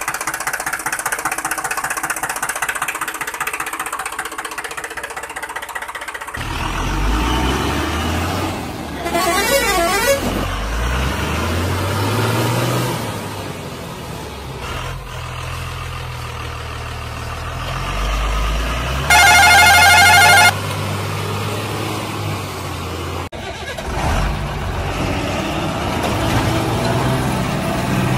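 Truck engine running, with a steady buzz for the first six seconds or so and then a low engine sound that rises and falls in pitch as it revs. About two-thirds of the way in, a loud truck horn sounds for about a second and a half.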